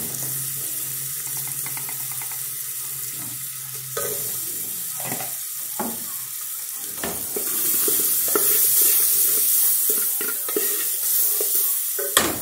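Seasoning and smoked paprika sizzling in hot lard in an aluminium pressure cooker while being stirred with a wooden spoon, with scattered knocks of the spoon against the pot. The sizzle gets louder past the middle, and a sharp knock comes near the end.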